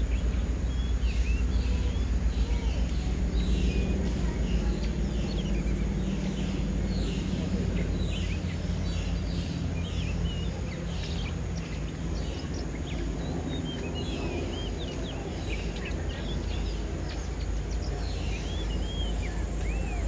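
Small birds chirping and singing in many short, quick-bending calls, over a steady low background rumble. Leaves rustle and crunch as a Malayan tapir pulls at and chews a leafy branch.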